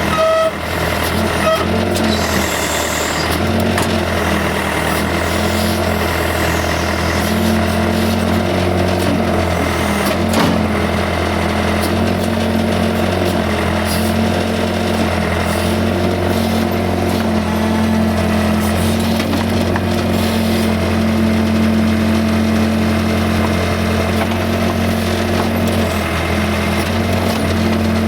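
Case 580C backhoe's four-cylinder diesel engine running steadily at working speed, its note rising and falling a little with the load. There is a single sharp knock about ten seconds in.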